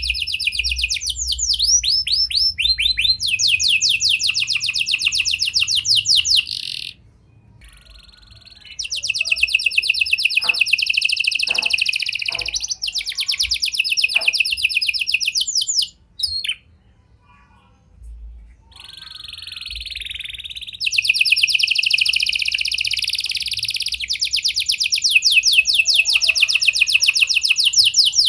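Canary singing long, rapid trills, delivered in three main bursts with short pauses between. The song is a canary 'isian' lure song holding prenjak-style and lovebird-style phrases.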